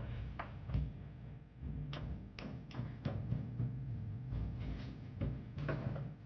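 Foosball play on a Tornado table: the ball being struck by the rod men and knocking off the table walls, about a dozen sharp, irregularly spaced knocks.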